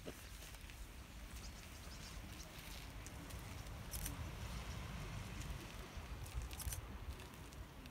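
Faint, even rushing from a huge flock of common starlings wheeling in a murmuration, about 40,000 birds. Wind rumbles on the microphone throughout, and there are a few sharp clicks about four and six and a half seconds in.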